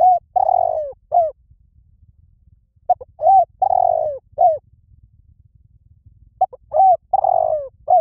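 Spotted dove cooing: phrases of a few short notes, a longer falling coo and a last short note, repeated about every three and a half seconds.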